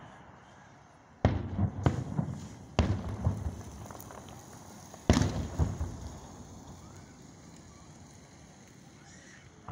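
Aerial firework shells bursting, each boom trailing off with smaller pops and crackle. Bangs come about a second in, again near two and three seconds, and the loudest about five seconds in, then it quiets down.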